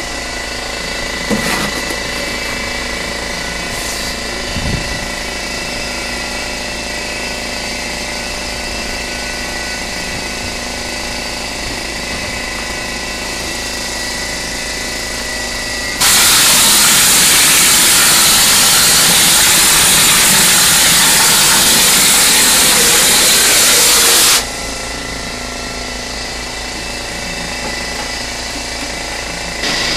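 Air compressor running steadily. About sixteen seconds in, a stucco hopper gun sprays for about eight seconds: a loud, even hiss of compressed air blasting the mortar out, which cuts off abruptly. A couple of light knocks in the first five seconds.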